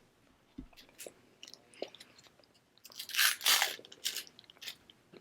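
Close-miked chewing and biting, with short wet mouth clicks, and a louder crunching stretch about three seconds in.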